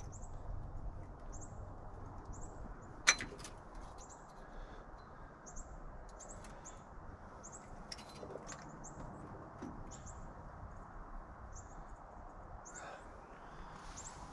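Small bird chirping over and over, short high chirps about one or two a second, over a low steady background hiss. A single sharp click about three seconds in.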